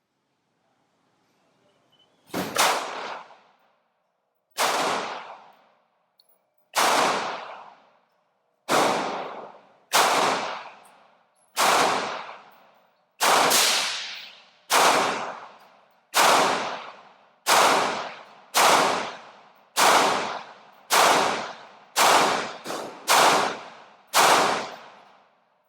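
Glock 19 9mm pistol firing a string of about eighteen single shots at an uneven pace, mostly a second or two apart with a quicker pair near the end. Each shot trails off over about a second.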